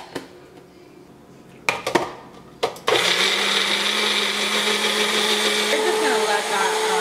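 A few plastic clicks and knocks as the blade lid is fitted to a Magic Bullet cup and the cup is set on its base. About three seconds in, the Magic Bullet blender's motor starts and runs steadily, loud, blending soaked beans and water into a cream.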